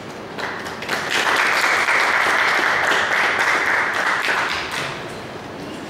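Audience applauding: the clapping starts about half a second in, swells, and dies away about four seconds later.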